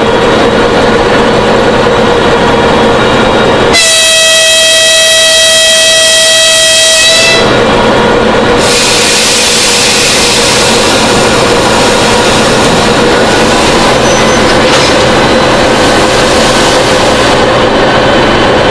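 Soviet 2TE10U twin-section diesel locomotive running, its diesel engine humming steadily. About four seconds in, it sounds one steady horn blast of several tones together, lasting about three and a half seconds. A loud rushing hiss follows for about nine seconds.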